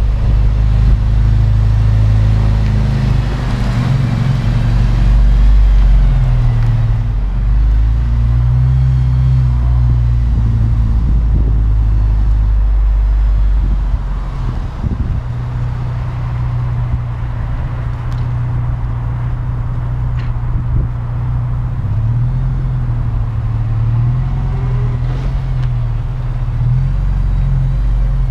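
Honda Integra DC5 Type R's 2.0-litre four-cylinder engine running as the car is driven slowly around, its pitch rising and falling with the throttle. Wind rumbles on the microphone, heaviest in the first half.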